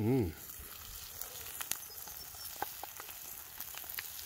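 Deer heart frying in butter in a pan over a campfire: a steady sizzle with scattered pops and crackles.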